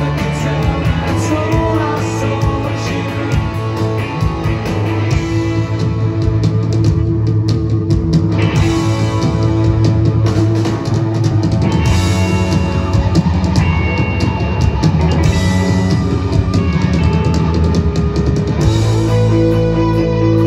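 Live indie rock band playing through a PA, heard from within the audience: electric guitars, bass guitar and drum kit in a full, loud song passage. The cymbals and top end drop back for a couple of seconds about seven seconds in, then the full band comes back.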